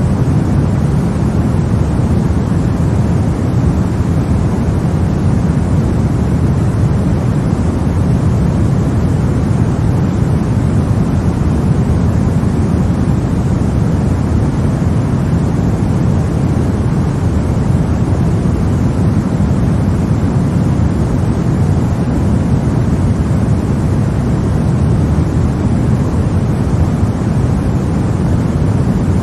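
Steady, unchanging sleep noise of the white-noise kind, a deep rushing hiss weighted toward the low pitches, more rumble than hiss.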